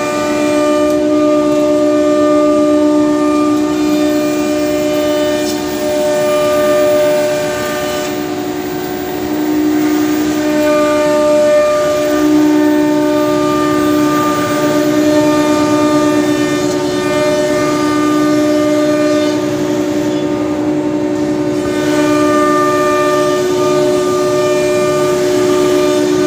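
9 kW ATC spindle of a CNC router running at speed and cutting door-profile grooves into cabinet door panels: a steady tonal whine with overtones over a noisy cutting and dust-extraction hiss. The pitch and level shift slightly now and then as the cut moves along.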